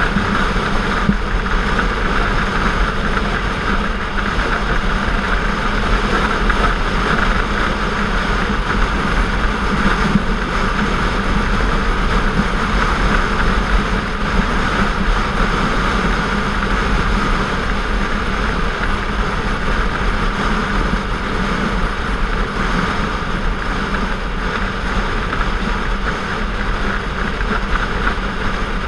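Sport motorcycle engine running at a steady cruise, with wind rushing over the bike-mounted microphone.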